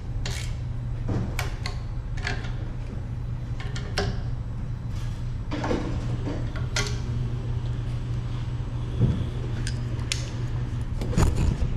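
Scattered metallic clicks and knocks of hand tools on a steel hydrant extension stem and its spider coupler as the fitting is tightened, over a steady low hum.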